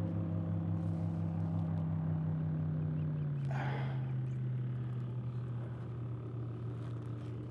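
A motorboat engine running steadily, its hum sliding lower in pitch about three seconds in and fading slightly. A short scuffing noise comes about three and a half seconds in.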